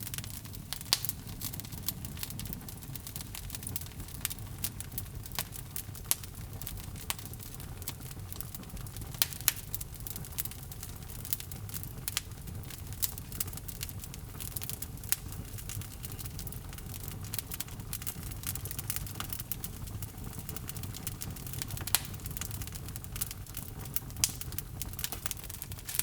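Log fire burning in a fireplace: a steady low rumble of flame with irregular sharp crackles and pops from the burning logs, a few of them loud.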